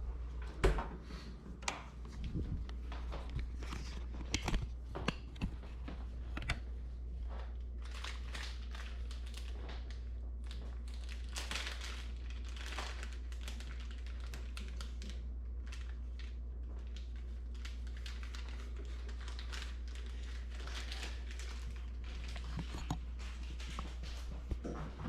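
Irregular rustling and crinkling handling noises, with a steady low hum underneath.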